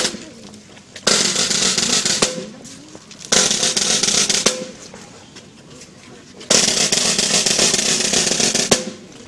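Ceremonial snare drum rolls, three in a row, each starting with a sharp accent and lasting one to two seconds. They mark the laying of a wreath.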